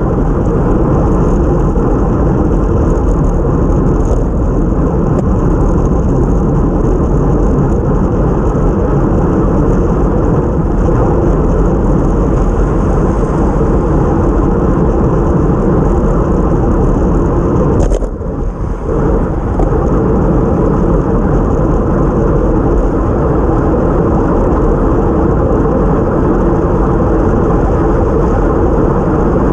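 Steady, loud rush of wind and wet-road noise on a bicycle-mounted action camera moving at race speed. It briefly drops and wavers about eighteen seconds in.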